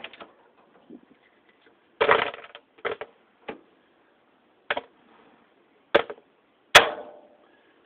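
Pieces of a dismantled ceiling fan being dropped or tossed onto a pile, clattering in about six separate knocks, the loudest near the end.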